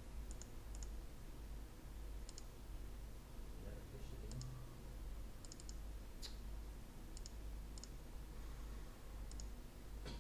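Computer mouse clicking: about a dozen light clicks, many in quick pairs, over a steady low hum.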